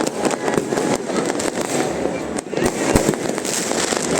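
Fireworks going off continuously: a dense crackle with many sharp bangs at irregular intervals, a couple of the loudest close together near the end.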